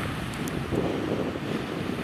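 Wind blowing across the microphone: a steady, unpitched rushing noise that swells slightly about a second in.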